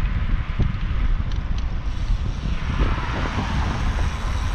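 Wind buffeting the microphone of a camera on a moving road bicycle, a steady fluttering rumble with tyre hiss over a concrete street. A louder hiss swells up about halfway through.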